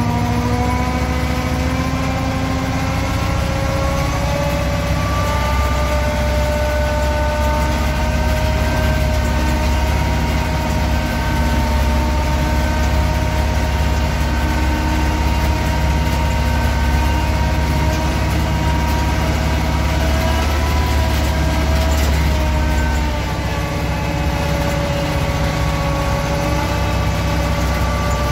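Yağmur YET 510 patpat's single-cylinder diesel engine running steadily as the motor-cart drives down a steep lane. Its pitch rises slightly in the first few seconds and dips a little, along with the level, a little over 20 seconds in.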